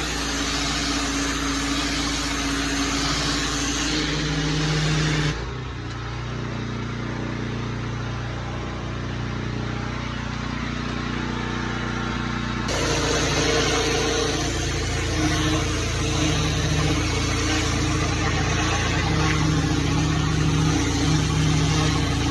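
Small gasoline engine running steadily under a loud rushing hiss of air or water spray from outdoor cleaning equipment. About five seconds in, the hiss cuts out abruptly, leaving a lower engine drone. It cuts back in just as suddenly near thirteen seconds.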